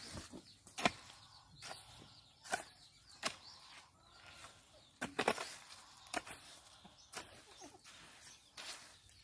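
Bamboo-handled hoe chopping and scraping through a heap of wet cement mortar on the ground, a short gritty stroke about every second, some strokes double.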